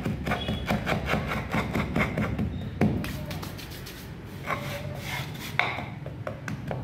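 Hands rubbing and packing moulding sand into a metal casting flask: quick rhythmic scrubbing strokes, about five a second, for the first three seconds, then a sharp knock and slower scrapes and pats as the sand is pressed down.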